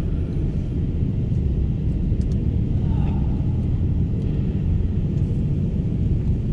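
Steady low rumble of a Toyota Hilux Surf driving slowly, heard from inside its cabin, with a few faint clicks.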